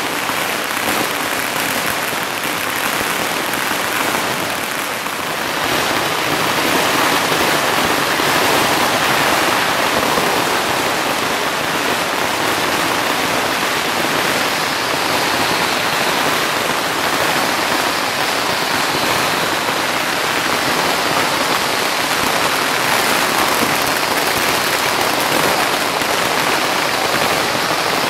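Chinese firecrackers going off in a dense, continuous crackle, so fast that the bangs merge into one steady rattle. It gets louder about six seconds in.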